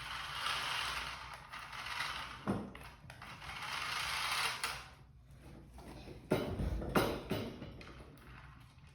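Toy remote-control car's small electric drive motor and gears whirring as it drives, in two runs of a couple of seconds each, followed by a few knocks.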